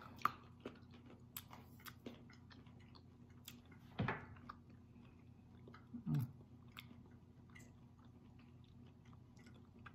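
Close-up chewing of a bite of raspberry and almond dark chocolate bar: soft wet mouth clicks and small crunches, with a louder mouth noise about four seconds in and a short falling 'mm' hum about six seconds in.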